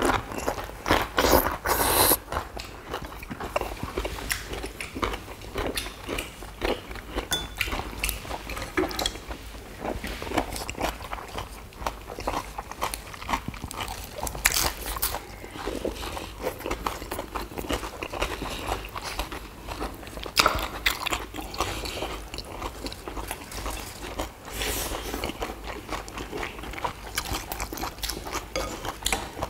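Several people biting and chewing fresh leaf wraps of lettuce and other raw greens with rice and duck bulgogi: close, wet chewing with frequent crisp leafy crunches.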